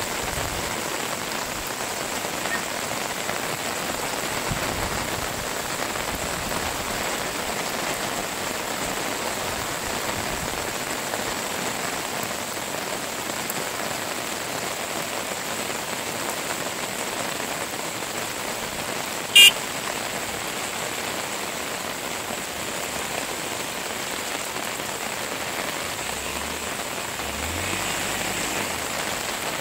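Steady hiss of rain, with a single sharp click about two-thirds of the way through.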